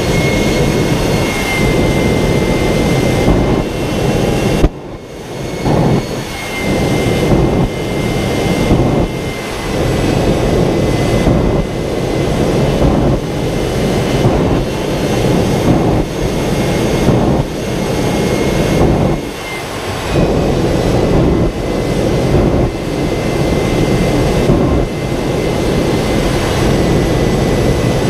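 Jet semi truck's turbine engine running loud, with a steady high whine over a dense rushing roar. Its level drops back and swells again several times, most sharply about five seconds in.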